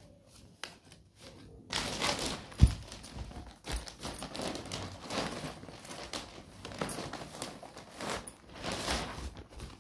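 Rustling and crinkling as a cloth-wrapped bundle is handled and unwrapped, in irregular bursts, with one sharp knock about two and a half seconds in.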